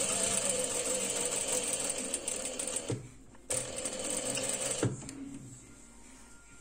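Industrial single-needle sewing machine stitching in two runs: about three seconds, a half-second stop, then about a second and a half more before it stops about five seconds in.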